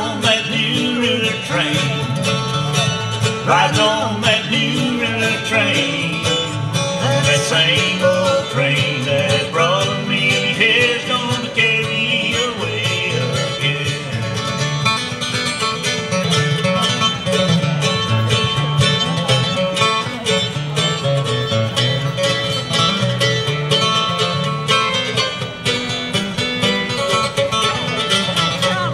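Bluegrass band playing live, with mandolin and acoustic guitar picking a steady rhythm.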